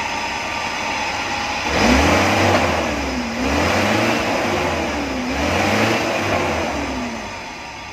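Freshly overhauled Toyota 3Y inline-four petrol engine running steadily, then revved up and let back down three times in a row before settling back toward idle.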